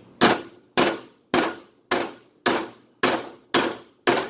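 A big hammer beating a socket onto a rounded-off bolt head: eight evenly spaced metal-on-metal strikes, about two a second, each ringing briefly. The blows drive the socket down so it bites onto the stripped head.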